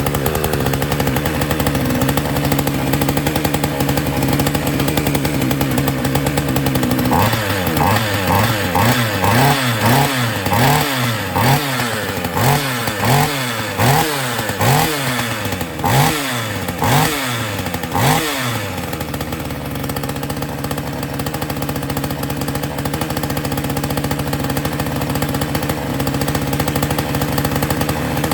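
Small two-stroke chainsaw idling, then revved in about a dozen quick throttle blips, roughly one a second, before settling back to idle.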